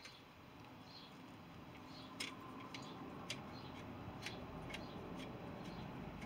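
Faint metallic clicks, about half a dozen spaced irregularly from about two seconds in, as a tool turns the atomising jet back into the burner head of an old paraffin blowlamp.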